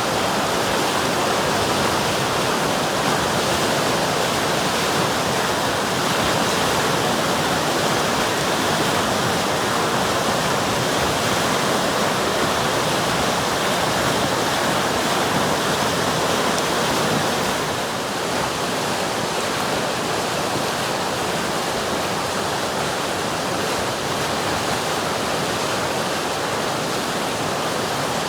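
River water rushing and burbling in a steady, dense wash of noise, dipping slightly in loudness about two-thirds of the way through.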